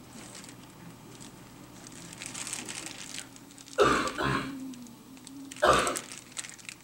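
Short throat noises from a person: a double one about four seconds in and a single one near the end.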